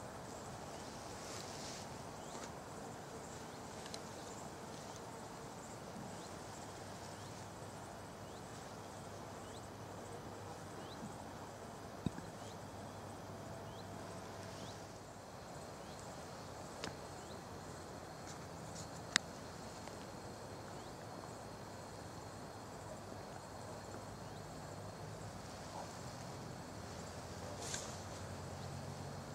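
Faint outdoor meadow ambience: a steady low hiss with scattered short insect chirps and a few sharp clicks.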